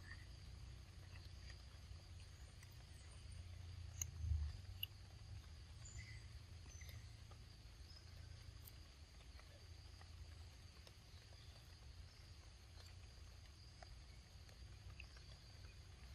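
Quiet outdoor ambience: a faint steady high drone of insects over a low wind rumble, with a few tiny clicks and one soft thump about four seconds in.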